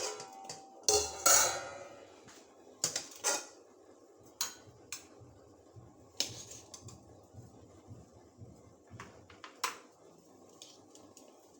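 Metal kitchen pots and utensils clinking and knocking: a series of separate clinks at irregular intervals, the loudest in the first two seconds with a brief ring, then fewer and fainter ones.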